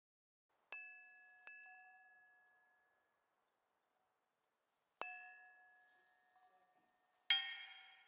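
A small suspended brass bowl-shaped bell struck with a wooden knob: two strikes close together about a second in, another about five seconds in, and a louder, brighter clang near the end. Each strike rings with the same few clear tones and fades over a couple of seconds.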